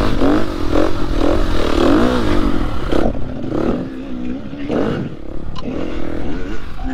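KTM dirt bike engine revving up and down as it is ridden up a dirt climb, its pitch rising and falling over and over, with wind rumbling on the microphone. A light click sounds about five and a half seconds in.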